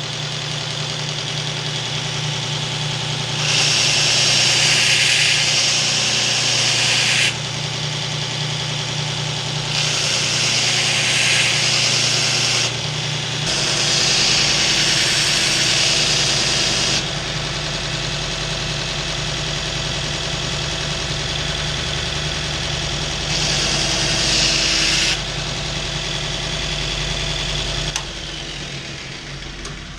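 Belt grinder running steadily with its motor hum, and a steel knife blade pressed against the belt four times, each pass adding a loud hissing grind for two to four seconds.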